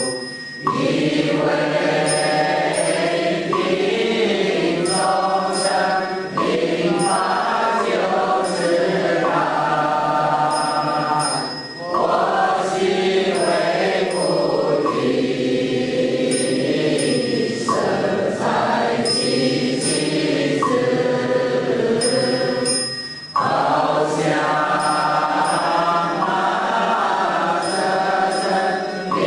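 Chinese Buddhist vow verse sung by a group of voices in slow, drawn-out phrases, with short breaks between the phrases.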